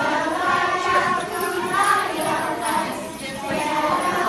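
Jingle bells jingling among a crowd of children's voices.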